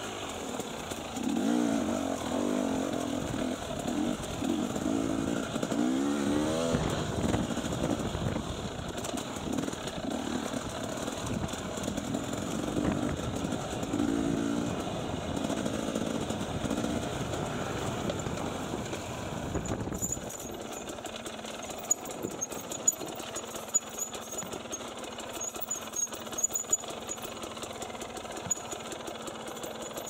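Enduro dirt bike engine running under load, its revs rising and falling with throttle and gear changes. After about twenty seconds it drops to a quieter, lower run, with scattered sharp knocks.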